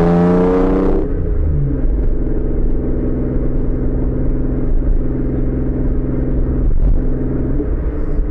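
Mercury Cougar's exhaust under way. It is still climbing in revs under throttle for about the first second, then the revs drop and it cruises at a steady engine speed with a low, even drone.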